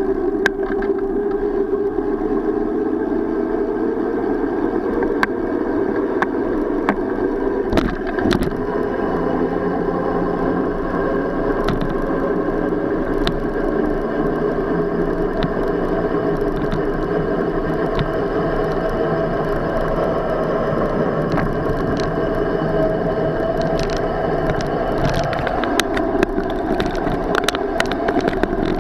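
Bicycle riding over a brick-paver sidewalk, with a steady noise of tyres and vibration and scattered sharp knocks from bumps, more of them near the end.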